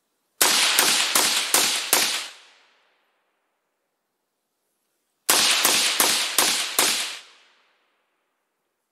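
Short-barrelled AR-15-style carbine fired through a suppressor: two strings of five shots, about two and a half shots a second, the second string starting about five seconds in.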